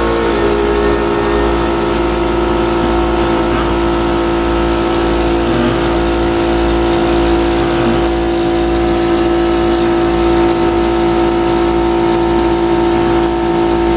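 Steady electric motor hum from a respiratory-therapy machine, a constant pitched buzz that holds at one level without cycling.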